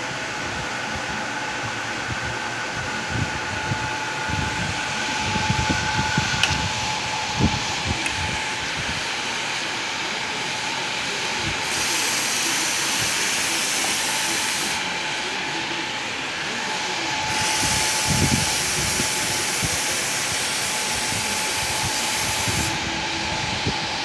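La Marzocco three-group espresso machine hissing steadily with a steady tone that stops with a click about six seconds in; then its steam wand is opened twice, each time a loud, bright steam hiss lasting a few seconds.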